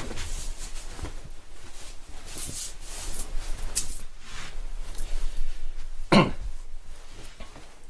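Rustling and swishing of a long wool greatcoat being swung on over another coat and pulled into place. One short, louder sound about six seconds in.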